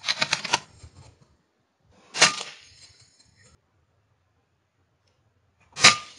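Suppressed .22 PCP air rifle (FX Impact M3) firing: sharp cracks with a short metallic ring, one about two seconds in and another near the end. A quick rattle of clicks comes right at the start.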